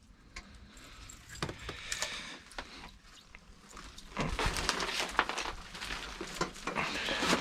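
Close handling noises: rustling with scattered small clicks and clinks, quiet at first and louder and busier from about four seconds in.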